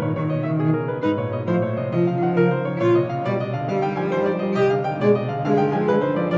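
Background music: piano with bowed strings in a slow classical style.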